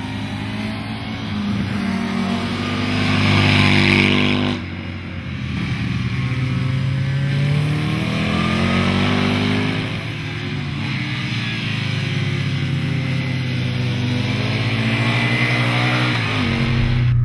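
Aprilia Tuono R Factory's V-twin engine at racing speed, its pitch rising and falling as it accelerates out of and brakes into corners. The sound changes abruptly about four and a half seconds in and again around ten seconds.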